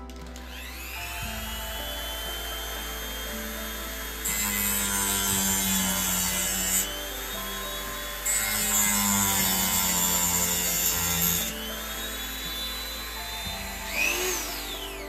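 Dremel rotary tool with a small cut-off disc whining up to speed, then cutting into a plastic turnout setting block, with two louder, harsher stretches of grinding as the disc bites. Its pitch winds down near the end.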